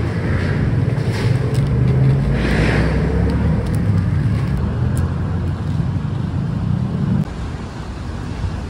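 Steady low rumble of city street traffic, which drops off abruptly about seven seconds in.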